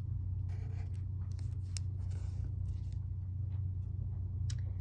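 Sharpie permanent marker scratching across paper in short strokes as a mouth is drawn, during the first two and a half seconds, then a single sharp click near the end, over a steady low hum.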